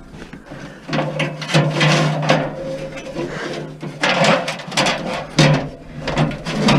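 A long piece of scrap being pushed and worked into a van's cargo space: repeated scraping and rubbing against the interior, with several sharp knocks.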